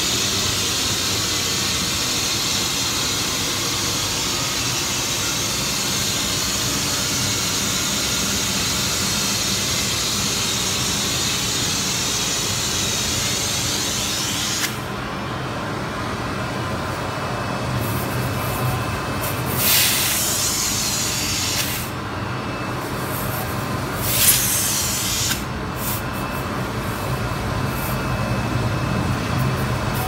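Filtronik Industries industrial vacuum cleaner running steadily with a loud suction hiss. About halfway through the hiss suddenly thins, and in the second half two short, louder bursts of hiss stand out, the stronger one toward the end.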